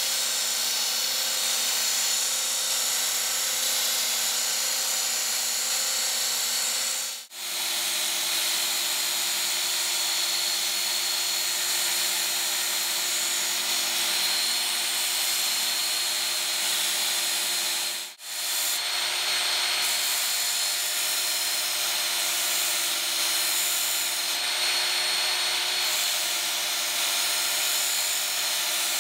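Work Sharp Ken Onion Edition electric belt sharpener running with its coarsest red abrasive belt, grinding steel off the spine of a chef's knife to reshape its broken tip. A steady motor whine with belt hiss, which breaks off for an instant twice, about 7 and 18 seconds in.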